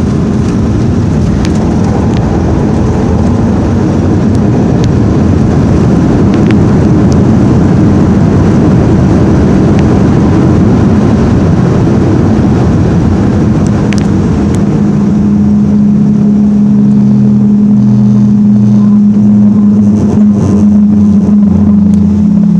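Boeing 737-500 heard from the cabin on its landing roll: a loud, steady rumble and engine roar that eases about 14 seconds in into a steadier, lower hum as the aircraft slows.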